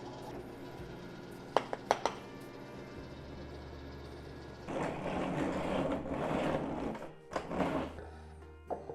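Hand chisel work in walnut: three sharp knocks on the chisel a couple of seconds in, then the chisel paring and scraping out a through mortise for a few seconds. Quiet background music runs underneath.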